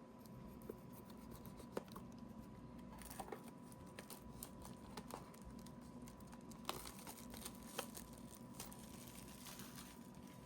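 Faint crinkling and tearing of trading-card box packaging being handled and opened, with scattered light clicks and two louder crinkly stretches, one about three seconds in and a longer one toward the end. A faint steady hum runs underneath.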